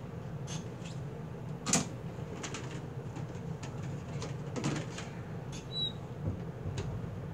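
Pen drawing on a sheet of paper: scattered short scratches and taps, the loudest about two seconds in, over a steady low hum.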